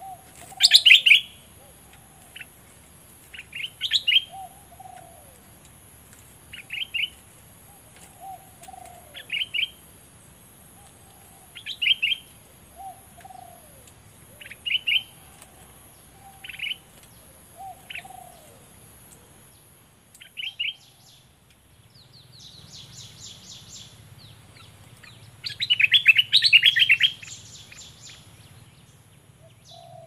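Caged decoy bulbul singing: short, sharp chirping phrases repeat about every two to three seconds, with softer falling notes between them. Near the end comes a longer, louder burst of rapid chirps. About two-thirds of the way through there is a few seconds of buzzing.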